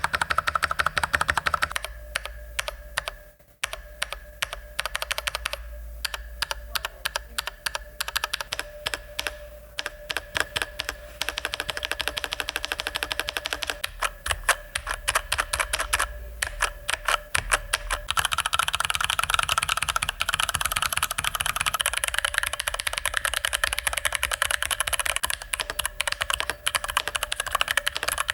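Fast typing on a mechanical keyboard with Cherry MX switches, a steady clatter of keystrokes. About eighteen seconds in, the clatter turns brighter and denser.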